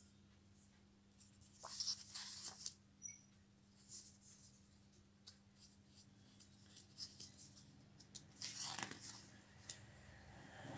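Pages of a picture book being turned by hand: paper rustling about two seconds in and again near nine seconds, with small paper-handling clicks between, over a faint steady hum.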